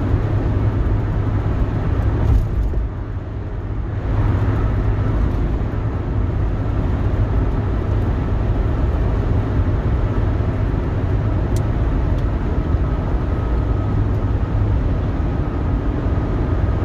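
Steady road and engine noise inside a moving car's cabin, a constant low rumble that eases briefly about three seconds in.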